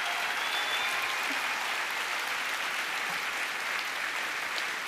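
Large audience applauding steadily in a standing ovation.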